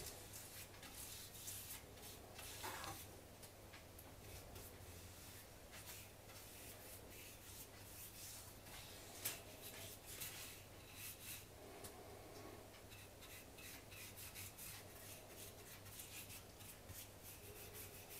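Small paintbrush swiping wood stain onto a wooden rifle stock: faint, quick bristle strokes scratching over the wood, with a single sharp tap about nine seconds in.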